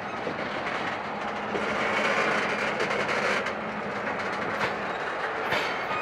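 Steel wheels of freight tank cars rolling slowly past on the rail at walking speed: a steady rolling noise with occasional sharp clicks, growing louder about a second and a half in.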